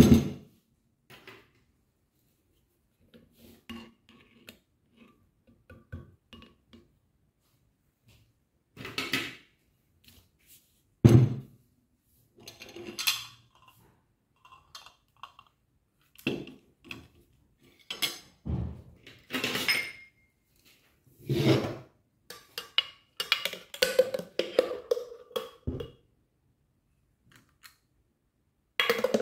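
Tableware handled on a table: a plate and glass bowl set down and a metal spoon working soft strawberry ice cream, heard as scattered knocks, clinks and scrapes, with paper rustling and quiet gaps between.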